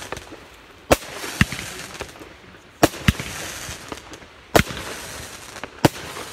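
A 20-shot firework cake firing: four sharp shots about one and a half to two seconds apart. The first two each have a second, smaller report close behind. A hiss runs between the shots.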